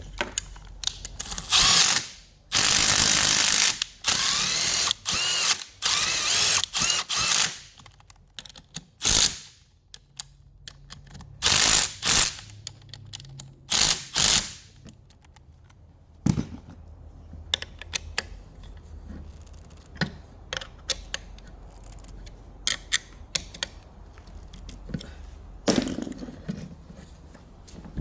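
Ratchet wrench ratcheting in repeated bursts of about a second each through the first half, followed by many small scattered metallic clicks of tool handling.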